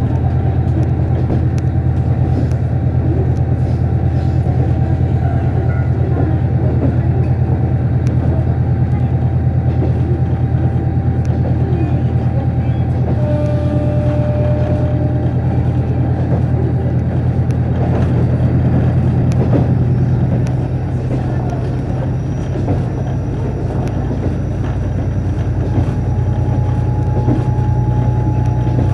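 Steady running noise of a KiHa 48 diesel railcar under way, heard from inside the coach: a heavy low engine hum with wheel and rail noise over it. It eases off for a few seconds past the middle, then picks up again.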